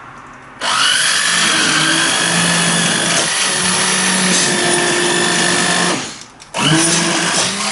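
Electric stick blender running in a saucepan of cooked cauliflower and stock, puréeing it into soup. It starts about half a second in, its motor whine rising briefly as it comes up to speed, then runs steadily. It stops for a moment near six seconds and starts again.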